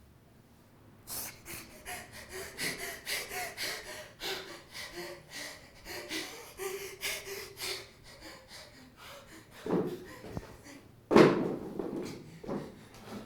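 A man breathing heavily in rapid, ragged gasps for several seconds, then a sudden loud burst about eleven seconds in that fades over the next two seconds.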